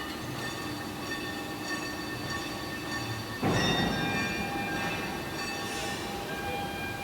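Heavy machinery running with several steady high-pitched metallic whines over a rumbling noise, growing suddenly louder about three and a half seconds in.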